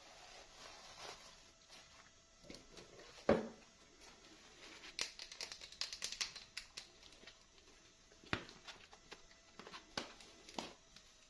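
Packaging and small plastic pieces being handled: scattered clicks, taps and crinkling, with one louder knock about three seconds in.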